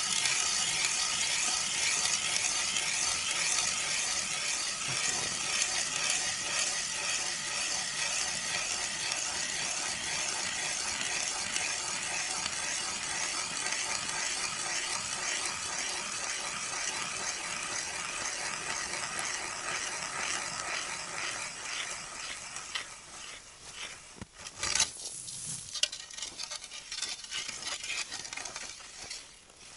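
Hand ice auger drilling through river ice: a steady rasping scrape of the blades shaving ice as it is cranked round. The scraping eases off about two-thirds of the way through, and a sharp knock follows toward the end.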